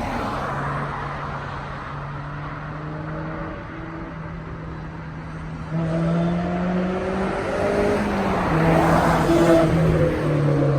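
Honda S2000 four-cylinder with a test pipe in place of the catalytic converter, a resonator delete and an HKS cat-back exhaust, driving past on a flyby: it approaches at a steady note, then grows louder about six seconds in as the revs rise, steps in pitch near eight seconds and is loudest near the end as it passes.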